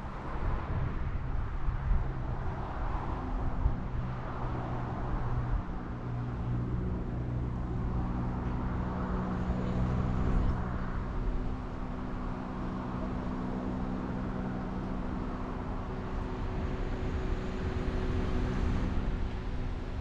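Street traffic with a vehicle engine running steadily close by, its low hum holding one pitch from about two seconds in over a constant low rumble.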